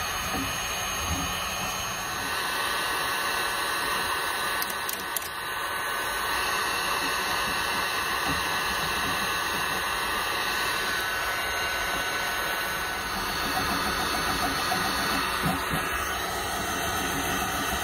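Electric heat gun running steadily, its fan blowing hot air onto old Gorilla Glue to soften it.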